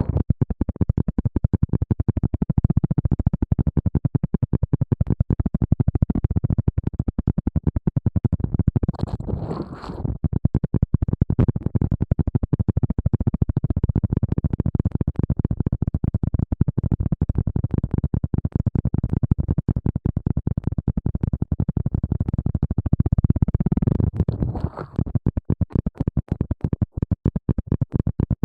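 Close-miked ASMR rustling: rapid, continuous scratching against the microphone, heavy in low tones, turning sparser near the end.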